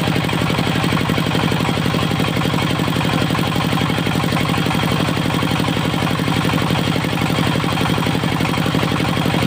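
Dongfeng diesel engine of a mobile circular sawmill running steadily with an even, fast chugging beat and no change in speed.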